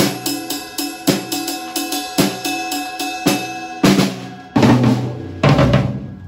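Acoustic drum kit played: a steady beat of quick cymbal strokes with a heavier accent about once a second, then three loud hits with cymbal crashes and a deep drum in the second half, ringing out.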